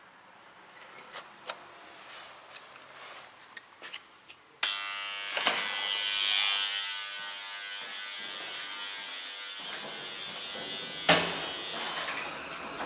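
A loud electric buzz starts suddenly about four and a half seconds in and runs for several seconds before easing to a lower, steady level. A sharp click comes near the end.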